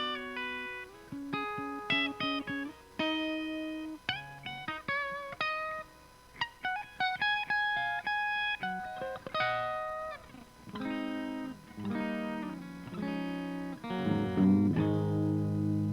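Electric guitar played through an Omega Series Micro battery-powered micro amplifier, recorded from the amp's speaker output with a Greenback cabinet impulse and reverb added. Quick runs of picked single notes lead into a loud held chord near the end.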